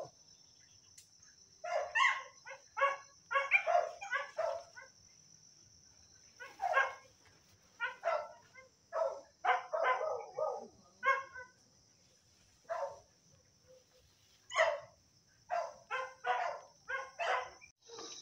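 Hunting dogs barking repeatedly in irregular bouts of short barks and yelps, over a steady high-pitched insect buzz.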